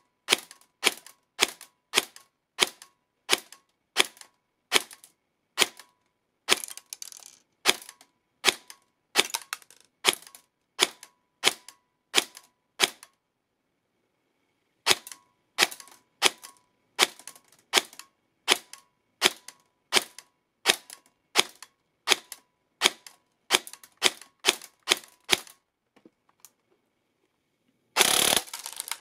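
Airsoft electric gun (AEG) firing single shots one after another, a sharp crack about every three-quarters of a second, with a short pause about halfway through. Near the end there is a louder rush of noise lasting about a second.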